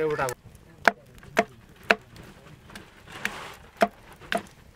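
A blade chopping on wood: six sharp strokes in two runs of three, about half a second apart, with a short rustle between the runs.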